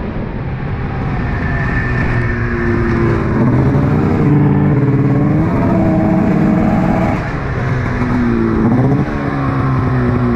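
Snowmobile engine running under way, its pitch holding, then rising and falling with the throttle, with a rise near the end.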